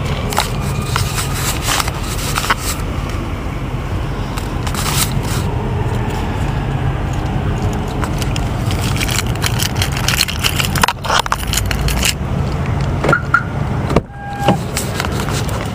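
Low, steady vehicle rumble with scattered clicks and knocks of handling. About fourteen seconds in, the outside sound cuts off sharply as a car door shuts, and a brief short tone follows.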